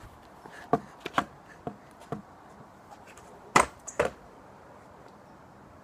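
A stunt scooter clacking on concrete as it is ridden: a few light knocks about half a second apart, then two loud knocks about half a second apart, about three and a half seconds in.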